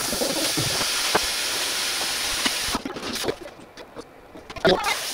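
A steady hiss that stops abruptly about three seconds in, followed by a few soft clicks and knocks.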